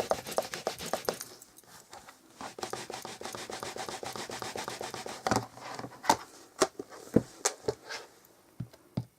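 A stamp being inked on an ink pad and pressed onto cardstock: quick repeated dabbing at first, a stretch of rubbing, then several separate taps in the second half.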